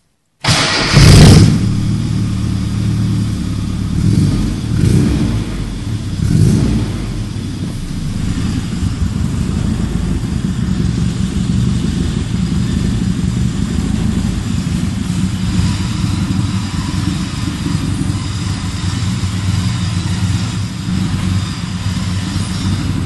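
Classic Mini's 1300cc A-series engine with a DTM exhaust starting up about half a second in and flaring to its loudest right after. Two short throttle blips follow, then the engine settles into a steady idle.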